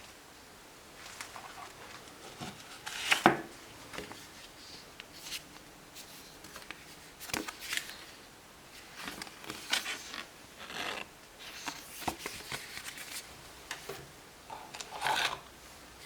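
Camera packaging being handled during an unboxing: intermittent rustles, scrapes and light clicks, the loudest about three seconds in and again near the end.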